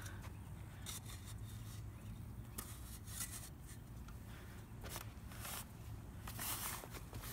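A spade digging into dry, clumpy soil: several short scraping strokes of the blade, the longest near the end, over a steady low rumble.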